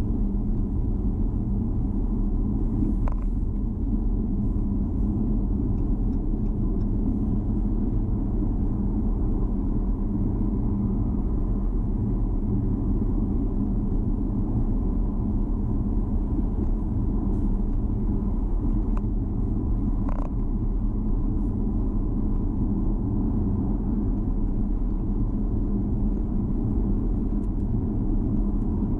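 A car driving at steady speed: a continuous low rumble of engine and tyre road noise, with a faint brief squeak twice, about three seconds in and again near twenty seconds.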